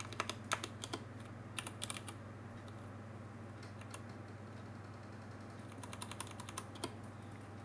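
Typing on a computer keyboard in short bursts of keystrokes with pauses between, over a steady low hum.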